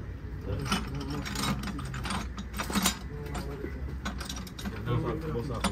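Irregular metallic clicks and clanks of work on a heavy truck chassis, several sharp knocks a second at times, over a steady low hum.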